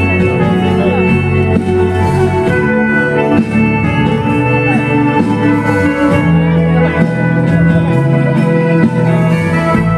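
Music with held chords that change every couple of seconds.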